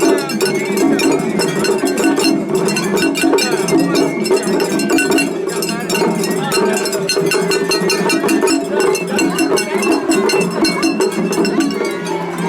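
Japanese festival hayashi: a small hand gong (atarigane) struck in a rapid, steady rhythm together with taiko drums and a bamboo flute, over voices of a crowd.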